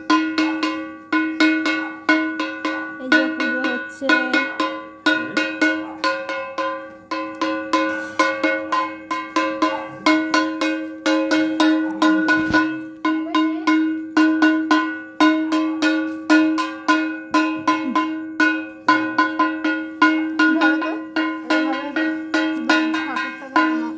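Metal puja hand bell rung continuously for aarti, about two to three strokes a second, each stroke ringing into the next with a clear held tone.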